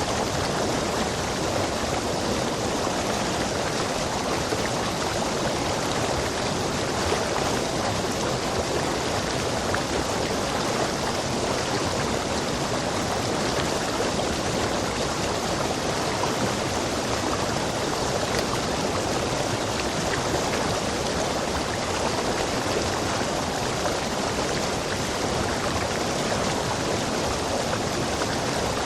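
Rainforest stream rushing over rocks, a steady, unbroken wash of water.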